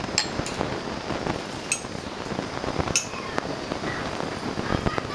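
Tableware clinking lightly: three sharp ringing clinks and a few smaller taps over a steady background noise.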